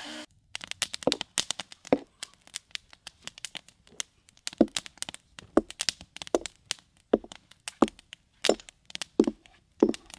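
Wood crackling and popping in a newly lit campfire: many sharp, irregular cracks and snaps.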